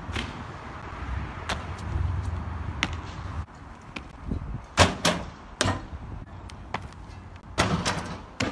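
Short, sharp thuds and slaps of a parkour runner's trainers and hands striking paving and stone as he runs, vaults and lands. There are several separate hits, the loudest about five seconds in and a quick cluster near the end.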